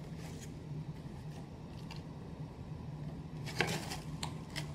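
Cardboard cracker box being handled and turned over in the hands: faint scraping, a short crackle about three and a half seconds in, then a couple of light clicks, over a steady low hum.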